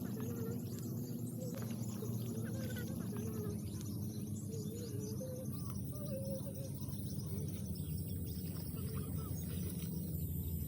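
Birds chirping over a steady low drone.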